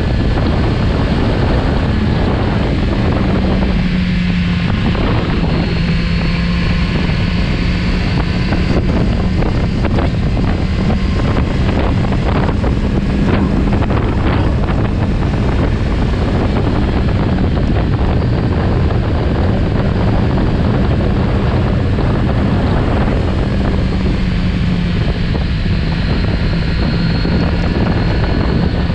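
Kawasaki Z900RS Cafe's inline-four engine running steadily at road speed, its note shifting slightly in pitch a few times. Heavy wind rushes across the microphone over it.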